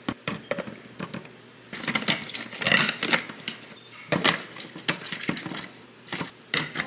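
Protein powder scooped into plastic shaker bottles, with the scoop and containers clattering. There is a run of sharp clicks and taps, and a denser scraping, pouring stretch about two to three seconds in.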